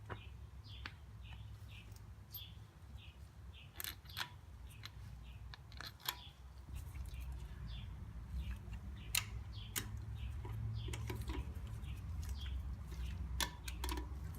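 Irregular sharp clicks and knocks, typical of hand tools and metal parts being handled while a Jimny's front vacuum hub is fitted back on. Small birds chirp repeatedly behind them, over a low rumble.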